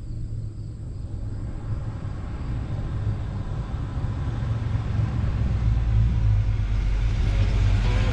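1949 International KB-1 pickup with a crate 350 V8 driving up, its engine rumble getting steadily louder as it approaches.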